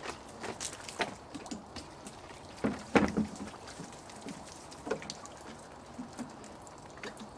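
Liquid from a plastic watering can trickling and dripping onto a plastic wheelie bin lid, heard as scattered ticks and splashes. There is a louder cluster of knocks about three seconds in.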